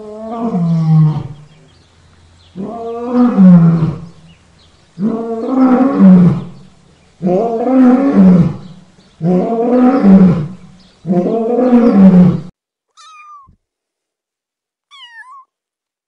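Lion roaring in a bout: six loud, long calls about two seconds apart, each falling in pitch. After them come two faint, short, higher-pitched calls.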